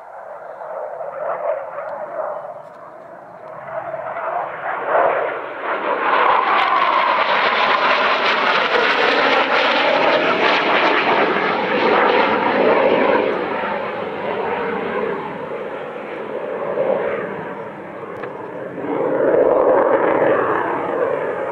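Jet engines of an RAF Panavia Tornado passing overhead. The roar builds from about four seconds in, stays loud for several seconds while its pitch slowly shifts, eases off, then swells again near the end.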